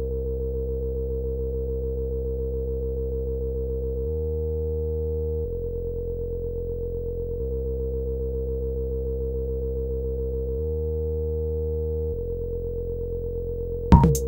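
A held, low synthesizer tone with a rich stack of overtones, stepping to a new note every one to three seconds. Just before the end, drum-machine beats cut in.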